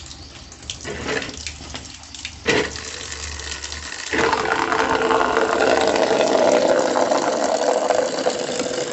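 Water gushing in a strong stream from the outlet ball valve of a homemade PVC-pipe sediment filter and splashing down. The filtered water is flowing freely. There are a few sharp knocks in the first half. About four seconds in the sound turns suddenly louder and steadier as the stream pours into a plastic bucket.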